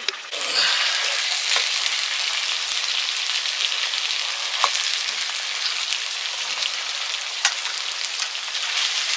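Food frying and sizzling in hot oil in a pan, the sizzle stepping up sharply just after the start and then holding steady, with a few sharp pops.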